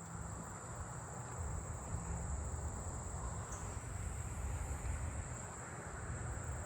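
A steady, high-pitched insect buzz from singing insects, over a low rumble.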